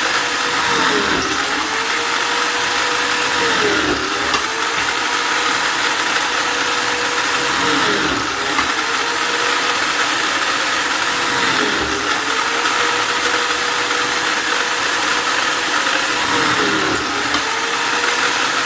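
Electric drill running continuously, its motor whine dipping briefly in pitch about every four seconds before settling back.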